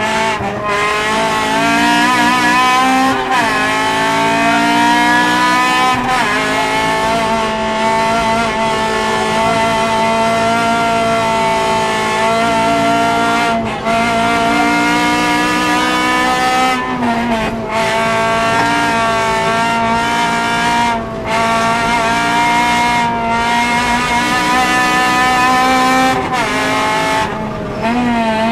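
Honda Civic VTi's 1.6 VTEC four-cylinder engine at full throttle, heard inside the cabin: the revs sit high for long stretches, dropping and climbing again with gearchanges and brief lifts off the throttle.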